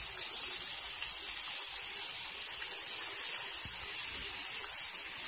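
Samosas freshly dropped into hot oil and deep-frying, a steady sizzling hiss.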